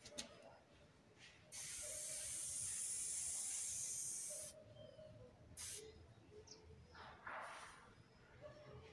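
Aerosol spray paint can spraying: one steady hiss lasting about three seconds, then two shorter bursts.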